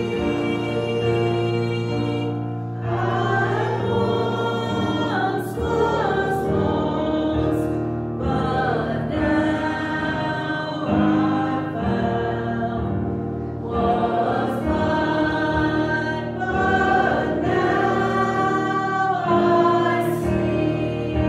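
Church congregation singing a hymn together in phrases, with instrumental accompaniment.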